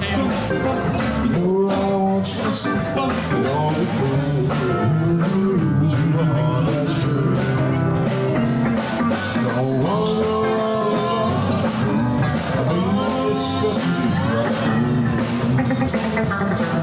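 Live band playing a rock and roll number with a steady beat, electric keyboard and a singer.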